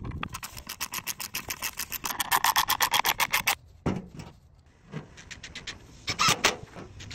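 Hardware being fastened while a mailbox is mounted on a wooden post. A fast run of clicks lasts about three and a half seconds, then about six seconds in comes a short burst of a cordless drill driving a screw.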